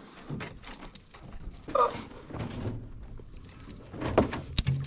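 Light knocks and clicks from gear being handled in a boat, with a brief squeak about two seconds in and a sharp knock near the end.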